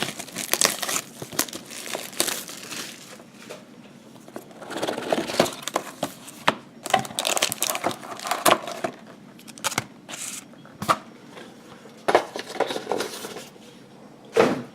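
Plastic wrapping crinkling and tearing in irregular bursts of crackles and rustles as a sealed box of trading cards is unwrapped and opened.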